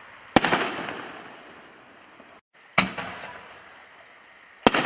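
Fireworks from a 'Total Destruction' cake of 5-inch canister shells going off: three loud bangs about two seconds apart, each trailing off in a fading crackle and echo. The last bang, near the end, comes as two reports in quick succession.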